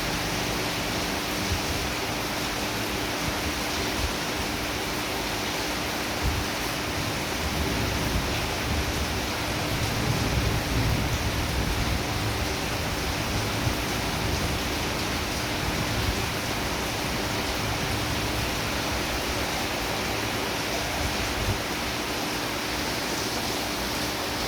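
Heavy rain falling steadily, a dense even hiss, with a low rumble swelling a little around the middle.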